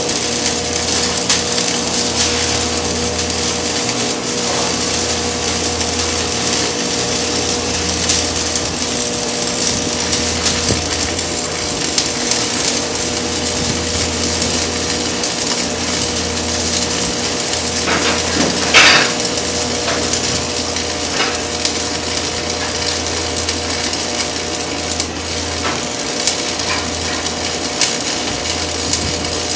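Electric arc welding: a steady crackling, sizzling arc over a constant electrical hum, with a brief louder burst a little past the middle.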